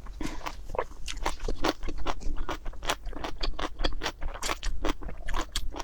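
Close-up chewing of crunchy food: rapid, irregular crunches, several a second.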